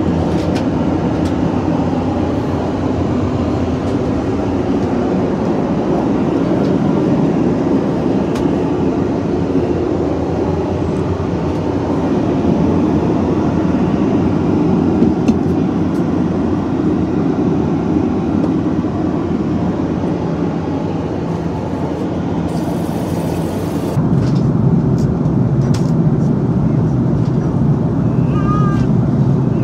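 Steady rumble of an Airbus A330-300 airliner's engines and airflow heard inside the cabin. Near the end it becomes deeper and slightly louder.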